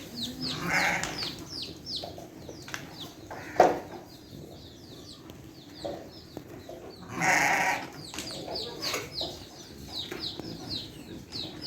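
Farmyard animals: a constant run of short, high, falling chirps from birds or chicks, with goats bleating, once about a second in and once louder about seven seconds in. A sharp knock about three and a half seconds in is the loudest sound.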